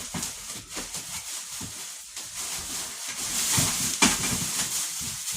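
Table saw parts and packaging being handled during unboxing: rustling of wrapping with scattered knocks and clicks, the rustle loudest about three and a half to four and a half seconds in, with a sharp knock about four seconds in.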